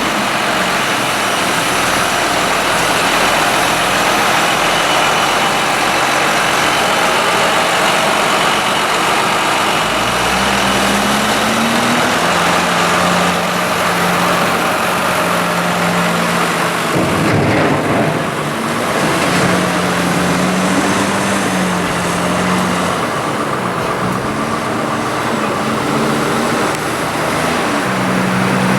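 Heavy diesel farm machinery engine running loudly under load, its pitch stepping and sliding up and down as the revs change, with a brief rougher disturbance partway through.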